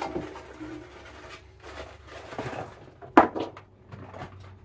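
Frozen fish sticks poured from their carton into an air fryer basket: a scratchy rustle as they slide and tumble in, with one sharp clack about three seconds in.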